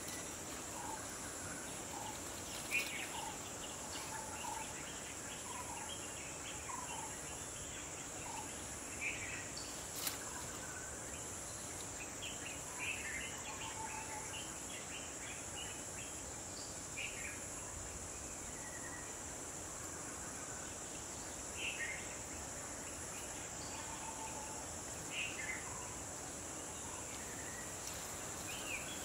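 Steady, high-pitched drone of insects, with scattered bird calls over it: short chirps and a string of brief whistled notes. A single sharp click about ten seconds in.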